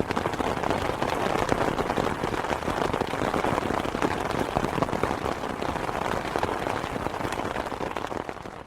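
Rain falling steadily on an open umbrella, heard from underneath: a dense patter of many small drop hits on the canopy. It fades out near the end.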